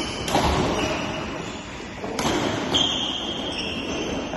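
Badminton rally in an echoing hall: two sharp racket strikes on the shuttlecock about two seconds apart, each ringing on in the hall, with players' footwork on the court between them.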